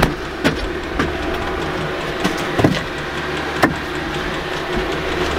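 Sharp knocks and clunks of split firewood logs being carried in and set down, about half a dozen, over a steady low engine-like hum.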